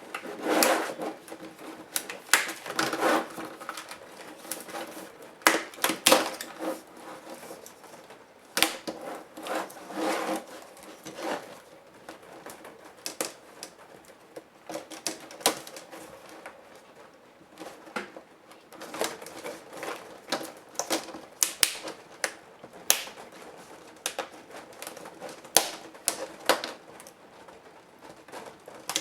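Irregular clicks, taps and scrapes of a Compaq F700 laptop's parts being handled and pried apart during disassembly.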